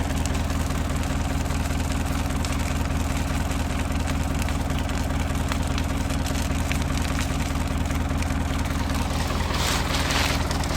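Manitou telehandler's diesel engine idling steadily. About nine and a half seconds in, bursts of hissing noise come in over it.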